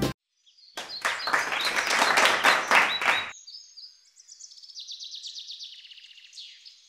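Applause from many hands, starting just under a second in and lasting about two and a half seconds, after the music cuts off. Then a faint, high-pitched, rapid chirping trill lasting about three seconds.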